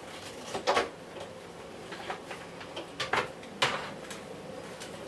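A few separate sharp knocks and clicks as the upright vacuum cleaner and its cord are handled, the loudest about three and a half seconds in, over a low steady background.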